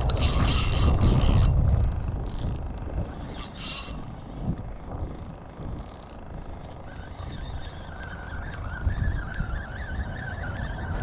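Fishing reel being cranked to bring in a hooked catfish, with wind rumbling on the microphone, loudest in the first two seconds, and scattered clicks and scrapes. A faint wavering whine comes in after about seven seconds.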